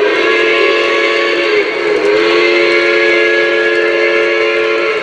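O-scale Lionel Legacy Pennsylvania Railroad B6SB steam locomotive's onboard sound system blowing its steam whistle in two long blasts, the second starting about two seconds in and lasting about three seconds, over a steady hiss.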